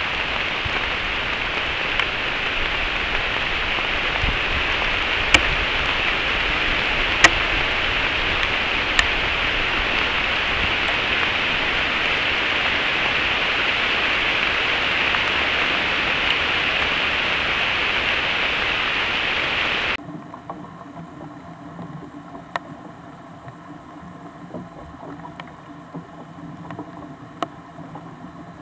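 Steady rain hiss with occasional sharp ticks of drops striking close to the microphone. About two-thirds of the way through, it cuts off suddenly to a much quieter faint background with a few light ticks.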